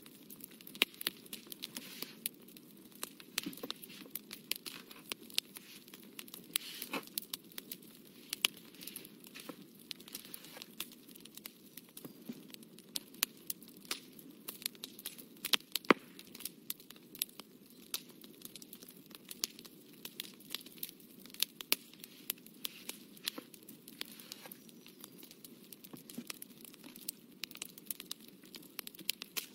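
Irregular crackling and clicking, many small ticks with a few louder ones, over a steady low hiss.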